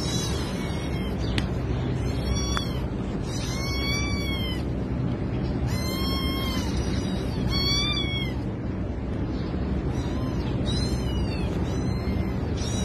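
A kitten meowing over and over: about ten short, high meows, one every second or so.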